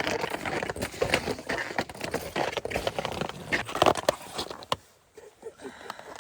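Snowshoe bindings being handled and strapped on: a close, busy run of clicks, scrapes and crinkling from plastic straps and buckles, with a louder knock near four seconds, settling down near the end.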